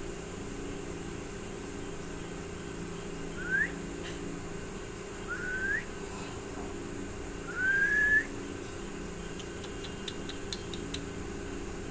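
A person whistling three short rising whistles, the last one longer and the loudest, over a steady low hum; a run of quick sharp clicks near the end.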